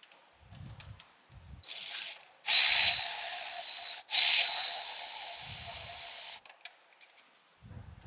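A cordless power tool spins out a bolt on the thermostat water outlet housing: a short blip, then two longer runs of about one and a half and two seconds with a steady high whine, the first the loudest. A few soft knocks come between the runs.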